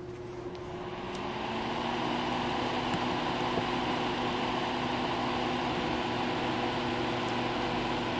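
A small electric motor with a fan spinning up over the first couple of seconds, then running with a steady hum and rushing air.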